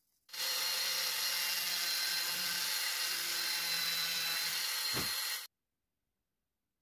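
Dremel rotary tool running at steady high speed, its small bit grinding into mesquite wood: a constant high whine over a grinding hiss. It starts about a quarter-second in and cuts off abruptly after about five seconds.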